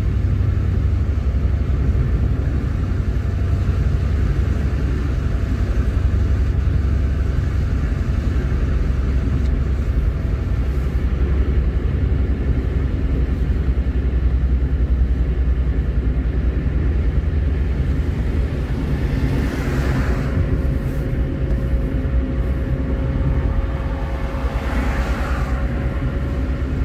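A car driving at a steady speed, giving a constant low engine and road rumble. Another vehicle passes close by twice, about two-thirds of the way through and again near the end.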